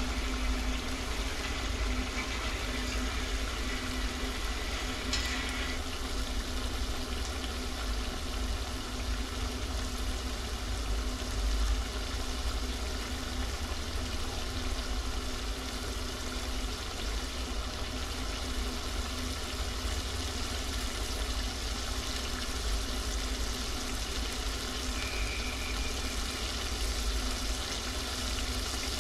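Goat liver sizzling in oil in a pan, a steady sizzle with a low rumble underneath.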